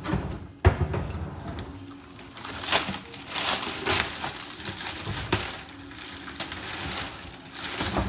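Clear plastic protective wrap crinkling and rustling in irregular bursts as it is pulled off the front of a dishwasher, with a sharp knock a little over half a second in.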